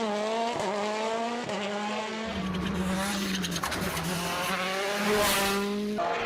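Rally car engine held at high revs, its pitch dipping briefly at a few gear changes. A rush of noise joins about two seconds in and swells near the end.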